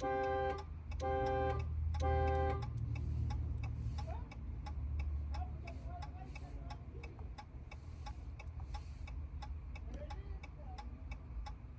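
Car horn sounding in regular pulses about once a second, the security alarm going off, stopping about two and a half seconds in. Quick, even clicking follows.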